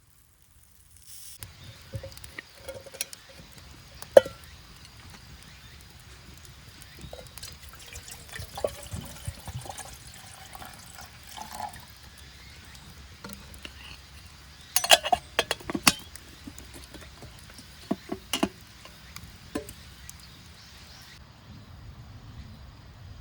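A series of small clicks and knocks, with a cluster of sharp clinks about fifteen seconds in and two more near eighteen seconds, over a faint steady hiss.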